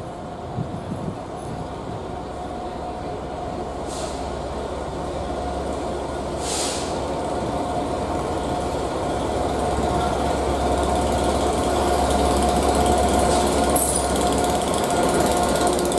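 Colas Rail Freight diesel locomotive approaching and passing, its engine drone and a steady whine growing louder as it nears, followed by the wheels of its train of coaches. Two short hisses come about four and six and a half seconds in.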